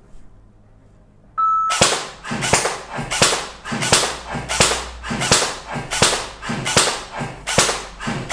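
Airsoft gun fired in single shots at a steady pace, about ten sharp cracks roughly 0.7 s apart, each with a short echo in a small shooting range.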